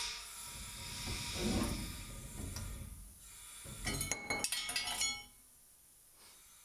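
Loose steel U-bolts dropping out of a truck's leaf-spring mount and clanking onto a concrete floor: a quick run of ringing metal clinks about four seconds in, lasting about a second. Before them, a hiss of air fading at the start and a low rumble as the axle is jacked up with an air jack.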